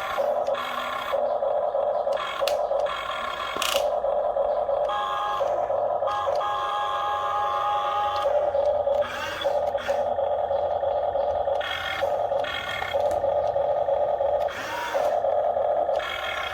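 Radio-controlled toy excavator's electric motors whining in runs of a second or two, stopping and starting repeatedly as the machine is worked.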